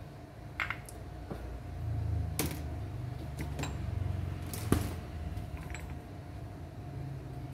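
Scattered light clicks and knocks of things being handled, the sharpest a little past the middle, over a low rumble and a faint steady hum.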